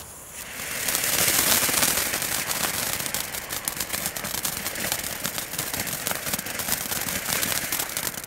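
Small category F1 firework fountain, "Orange Stars" from a Geisha Tornado pyro box, spraying sparks: a steady hiss thick with fine crackling. It starts about half a second in and grows to its loudest within the next second.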